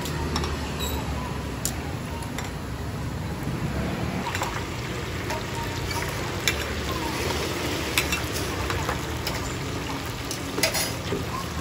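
Oyster fritters deep-frying in a large wok of hot oil, a steady sizzle and bubbling. A metal skimmer and ladle clink against the wok and the batter pot a few times.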